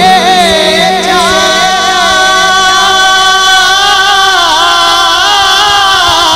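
A man singing a naat into a handheld microphone through a sound system, holding long, wavering, ornamented notes without words.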